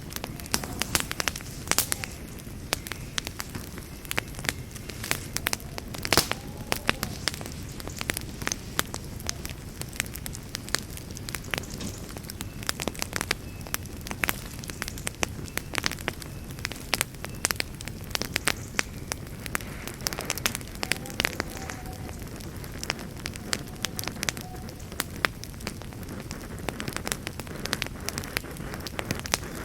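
Wood campfire crackling, with frequent irregular sharp pops and snaps over a steady low rumble of burning.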